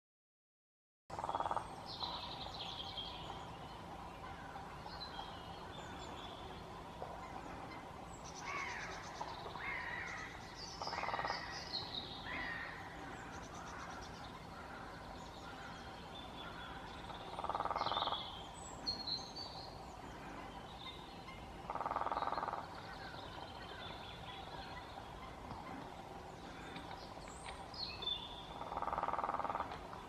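Lesser spotted woodpecker drumming on a tree: five short, rapid drum rolls, each under a second, spaced several seconds apart. High bird calls and chirps come in between.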